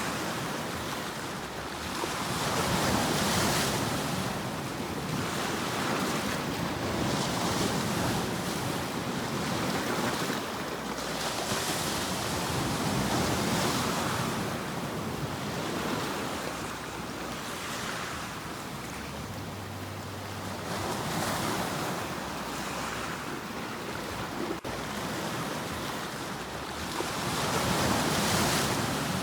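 Sea waves surging and washing, the rush of water swelling and easing every few seconds.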